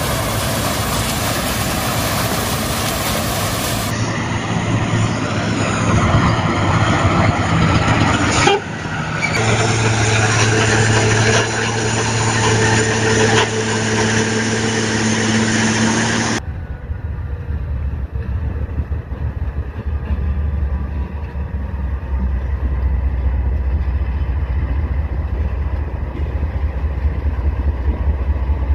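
Sugarcane harvester and the truck and tractor hauling its cane trailers running at work in the field, heard in several short cuts with a steady engine hum. About halfway through this gives way to the deep, low rumble of a line of diesel-electric locomotives.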